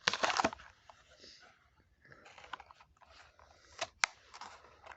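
Plastic blister pack and cardboard card of a Hot Wheels car being opened: crinkling and crackling with scattered snaps, loudest at the start and again about four seconds in.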